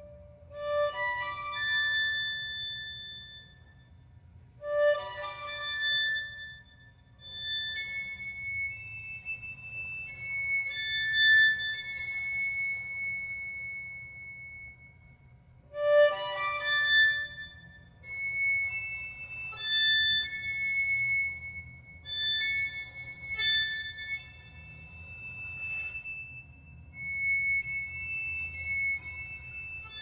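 Instrumental music: a slow, high-pitched melody of long held notes. New phrases begin on a stronger, lower note about five seconds in and again around halfway through.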